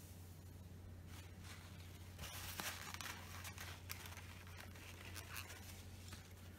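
Faint light taps and scratches from a dotting tool dabbing acrylic paint onto a painted wooden circle, a few slightly louder about two to four seconds in, over a steady low hum.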